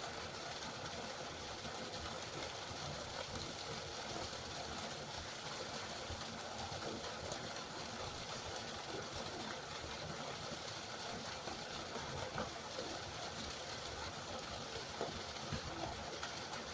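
River water flowing, a steady even noise with no breaks.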